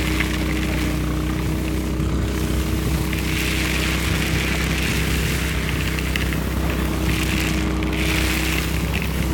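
DR Power lawn and leaf vacuum's engine running steadily while its intake hose sucks up alpaca manure pellets, with a rush of air that swells and fades as the nozzle moves over the ground and small ticks of pellets.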